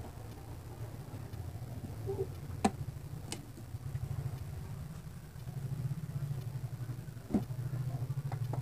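Epson L380 inkjet printer running with a low, fast-pulsing mechanical hum, powered on after repair. Two sharp clicks come about two and a half and three seconds in, and a louder knock comes a little after seven seconds, from the scanner lid being opened and shut.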